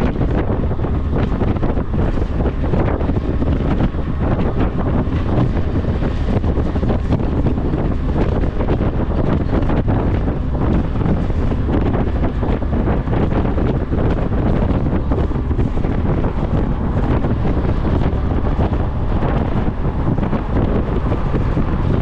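Strong wind buffeting the microphone, a loud, continuous low rumble with no breaks.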